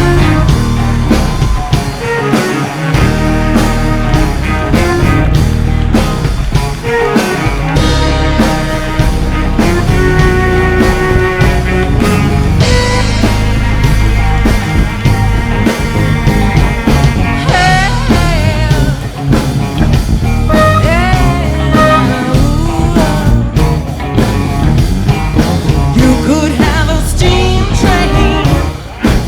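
A live rock band playing, with a steady full low end and melodic lines that bend in pitch in places.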